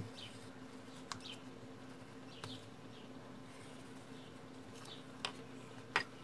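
Quiet low hum with faint short falling chirps every second or so. A few light clicks, the loudest near the end as the pencil and paper template are put down.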